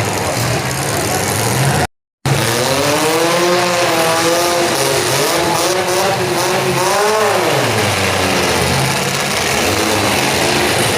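Demolition derby car engines running and revving loudly, their pitch rising and falling over a steady noisy din. The sound cuts out briefly about two seconds in.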